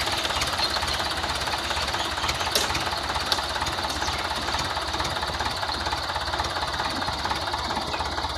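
Diesel tractor engine idling steadily with a rapid knocking clatter.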